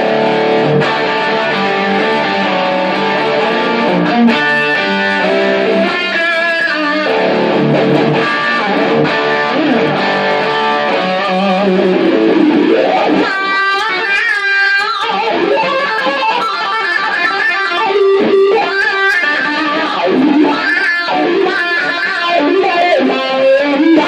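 Electric guitar, a Fernandes Retro Rocket Elite, played through a Peavey Stereo Chorus 2×12 amp. It plays ringing chords for the first half, then after about twelve seconds moves to single notes that waver and bend in pitch.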